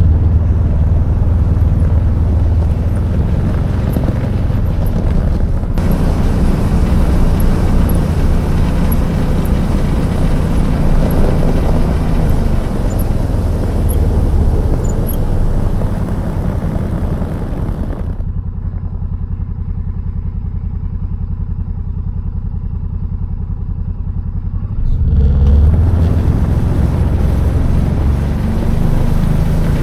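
ATV engine running steadily while riding a trail, with a duller, slightly quieter stretch about two-thirds through before the fuller sound returns.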